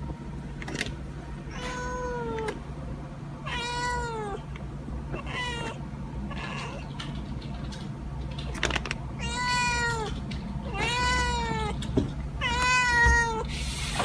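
Domestic cat meowing repeatedly, about six drawn-out meows that each fall in pitch, the later ones louder. A steady low hum runs underneath.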